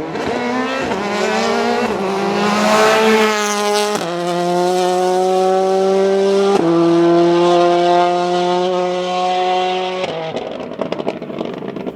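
Ford Focus WRC's turbocharged 2.0-litre four-cylinder engine accelerating hard, its pitch climbing through the gears with sharp upshifts about four and six and a half seconds in. Near the end the engine note fades as the car lifts off, leaving a few exhaust crackles.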